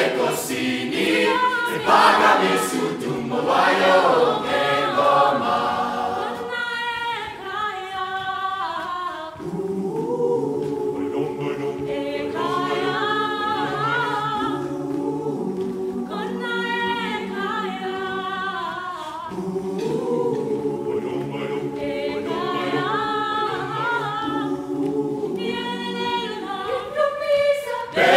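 Large mixed choir of men's and women's voices singing. A loud, rhythmic passage gives way about six seconds in to long held chords, with a higher melody moving above them.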